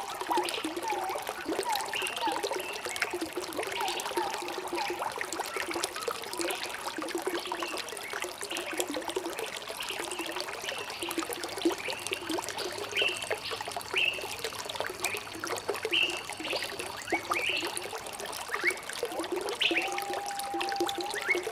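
Water trickling steadily in a stream, with birds calling over it: a short note repeated about twice a second at the start, higher chirps in the middle, and a long level whistle near the end.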